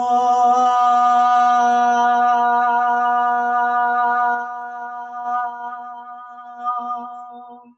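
A woman's voice chanting one long Om on a single steady pitch, loud at first and softer from about halfway through until it stops near the end.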